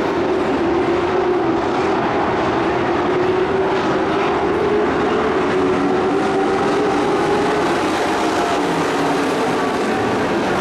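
Several dirt-track race pickup trucks' engines running together as the pack races around the oval, a loud, steady drone whose pitch drifts slightly up and down.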